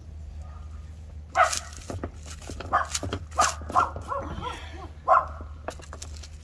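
A dog barking in short single barks, about five or six over a few seconds, over a steady low hum.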